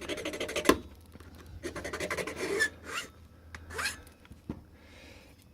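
Small file rasping across a silver MS2 key blank in two spells of quick strokes, with a sharp click partway through the first. This is the filing of an impression mark at the first cut position while impressioning a padlock key.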